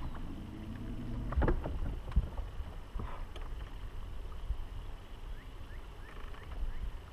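Steady low rumble of wind and water around a bass boat, with a couple of sharp knocks about one and a half and two seconds in.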